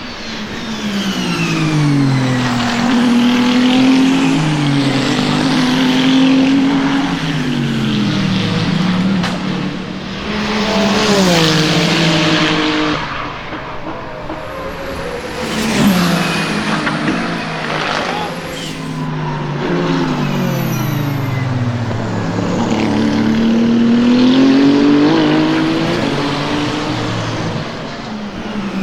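Ferrari 499P hypercar's twin-turbo V6 running at racing speed past the trackside, its note repeatedly falling on downshifts and braking and climbing again as it accelerates through the gears. The loudest, closest pass comes about ten seconds in.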